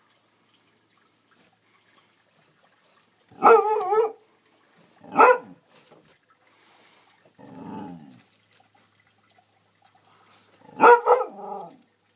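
A dog barking in short, loud bursts: a wavering bark-yowl about three and a half seconds in, a sharp single bark a second later, a quieter, lower call near eight seconds, and another wavering bark about eleven seconds in.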